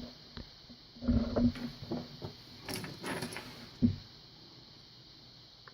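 Irregular clicks, knocks and light metallic rattling as the picked cross lock and metal tools are handled ahead of gutting it, ending in one sharper knock.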